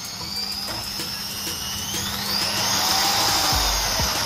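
Corded electric drill running unloaded through an AC speed regulator. Its motor whine holds steady, then rises in pitch about two seconds in as the speed is turned up.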